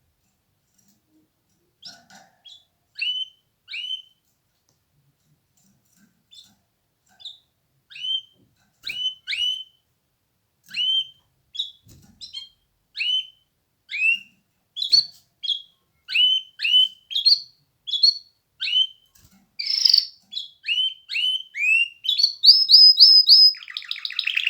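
Canary singing in short, down-slurred chirps, spaced apart at first and coming closer together, breaking into a quick trill of repeated notes near the end.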